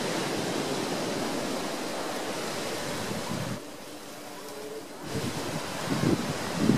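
Waves breaking and washing up a sandy beach in a steady wash of surf. It drops away about halfway through and swells up again near the end.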